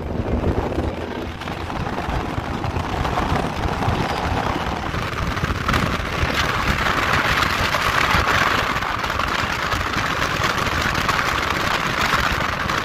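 Road and wind noise of a pickup truck driving at highway speed, heard from inside the cab: a steady rush with a low rumble, its hiss growing stronger about halfway through.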